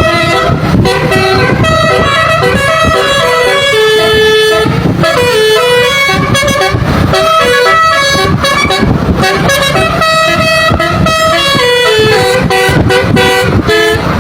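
A truck's Basuri telolet musical horn playing a fast melody of short stepped notes, with engine and road noise underneath.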